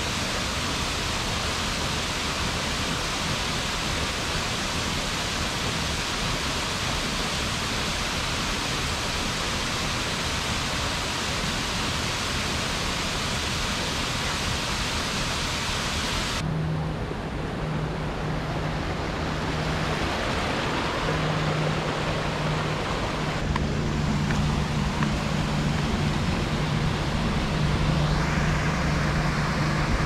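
Waterfall pouring into a pool, a dense steady rush of falling water. About halfway through it changes suddenly to the softer rush of a rocky creek with small cascades, under a steady low hum.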